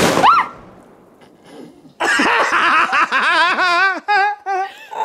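A sudden loud burst of homemade black powder going off, then a rising "whoa" and, about two seconds in, a long stretch of hearty laughter, wavering and breaking into short "ha"s near the end.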